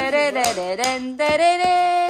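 Music with singing, cut through by sharp drum hits as an electronic drum pad is struck with wooden drumsticks.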